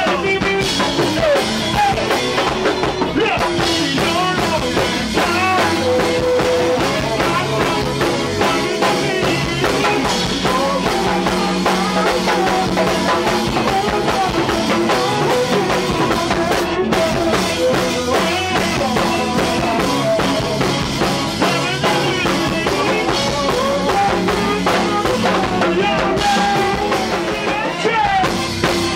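Live go-go band music: a steady drum-kit beat with instruments and a vocalist on microphone over it.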